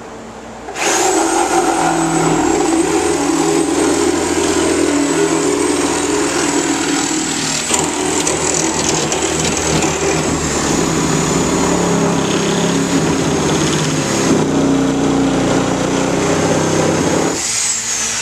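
Corded reciprocating saw (Sawzall) cutting, a continuous loud rasping with a steady high motor whine; it starts about a second in and stops near the end, the whine briefly rising and then falling as the saw shuts off.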